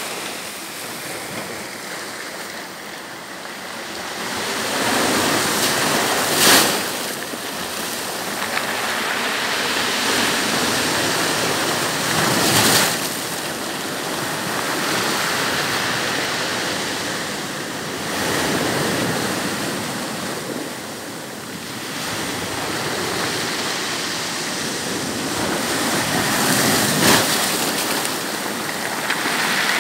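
Sea surf breaking and washing up a pebble shore, a rushing noise that swells and eases every few seconds, with three brief, sharper bursts.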